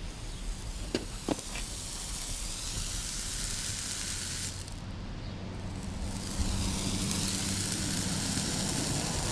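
A hot steel horseshoe pressed against a horse's hoof for hot fitting, the hoof wall hissing and sizzling as it burns. It comes in two long stretches with a short break about halfway. Two light knocks sound about a second in, and a low steady hum joins in the second half.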